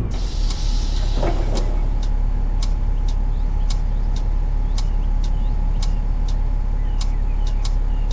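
Inside a bus: the engine rumbles steadily, a short hiss of air comes about half a second in, and regular sharp ticks run alongside faint, short, high squeaks from the bus.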